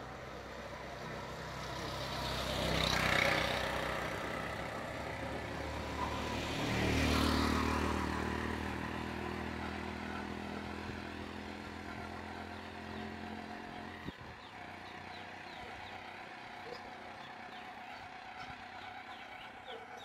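Two motor vehicles pass close by, one after the other, loudest about three and seven seconds in. An engine's low hum carries on after the second until a sharp click about fourteen seconds in, and quieter street ambience follows.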